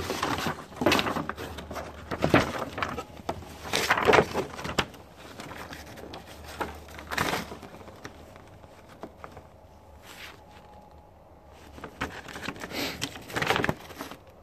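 Paper rustling as a printed instruction manual is handled and its pages are flipped. The irregular rustles are busiest in the first few seconds, die down about halfway through, and pick up again near the end.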